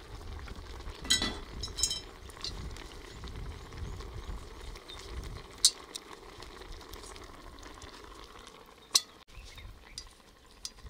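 Three-legged cast-iron pot of pasta on hot coals, sizzling and bubbling steadily, with a few sharp metal clinks and clanks from its lid and wire handle as it is handled and lifted.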